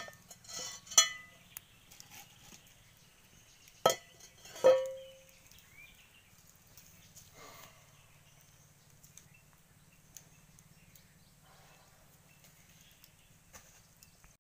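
Metal utensils and cookware handled over a wood fire: a few sharp knocks about a second and four seconds in, then a metallic clink that rings briefly, over a faint low hum, with a few soft knocks later.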